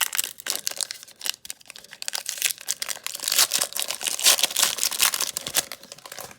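Foil wrapper of a Pokémon Battle Styles booster pack crinkling and tearing as it is worked open by hand. The crackling runs in irregular bursts and cuts off suddenly at the end.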